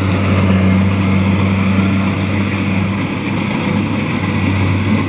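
Kubota DC70 combine harvester's diesel engine running steadily, a loud, even, deep hum with no change in speed.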